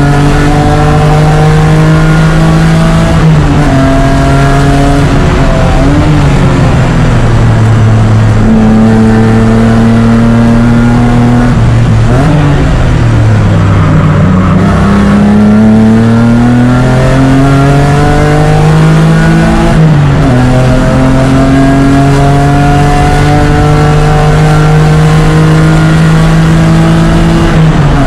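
BMW E36 race car engine, heard on board, pulling hard under load. Its pitch climbs steadily, drops sharply a few times, then climbs again.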